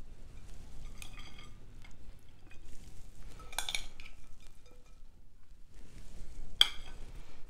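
Metal forks clinking and scraping against a perforated metal bowl and a plate as salad is lifted and served, with a few sharper clinks, the loudest near the end.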